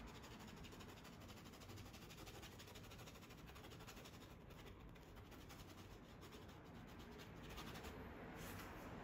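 Near silence, with a faint scratching of a paintbrush working oil paint on canvas over a low hiss.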